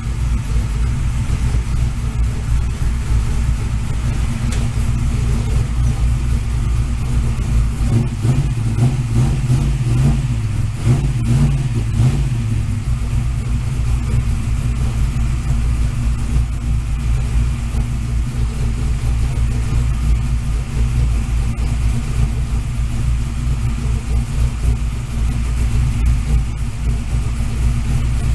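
1965 Ford Falcon engine running on its first start, a steady loud idle. About eight seconds in its speed rises and wavers briefly before settling back down.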